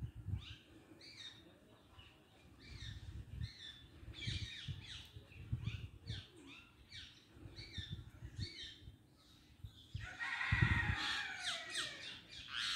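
Several birds chirping and squawking in quick, short falling notes, with a louder, busier burst of squawking about ten seconds in. Low, muffled bumps come and go underneath.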